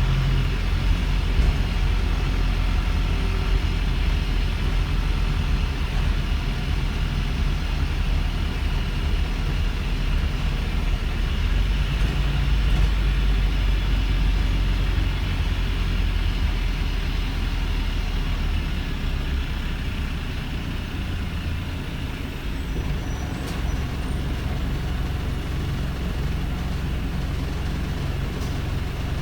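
Daimler OM934 four-cylinder diesel engine of a Wrightbus StreetLite bus running steadily with a deep, even engine note, which the uploader calls a rough idle. The deepest part of the note drops away about two-thirds of the way through.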